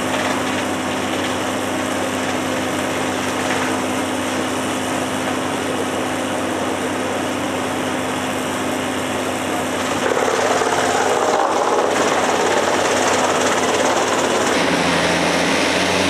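Mobile wood chipper and log-grapple excavator running at full work, a loud steady engine drone with heavy mechanical noise. About ten seconds in it gets louder and rougher as logs are fed into the chipper.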